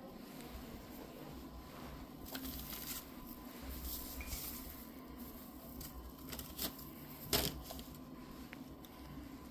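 Handling noise as plush Halloween decorations are picked up off a table: soft rustling in bursts, a few light clicks, and one sharper knock about seven seconds in.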